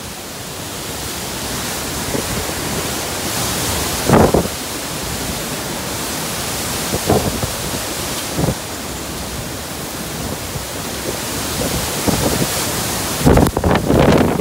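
Strong typhoon wind and rain making a steady rushing noise that slowly grows louder. Gusts hit the microphone in short loud blasts about 4, 7 and 8½ seconds in, and near the end turn into rapid buffeting.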